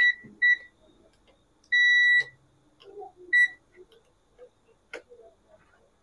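Digital multimeter beeping on one steady high tone: two short beeps, a longer beep of about half a second around two seconds in, then another short beep. These are the meter's continuity/diode-test beeps as its probes are touched to points on an LED TV's power-supply board.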